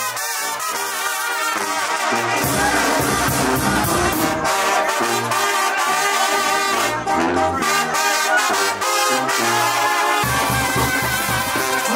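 Live brass band playing: trumpets and trombones over a sousaphone bass line that steps from note to note.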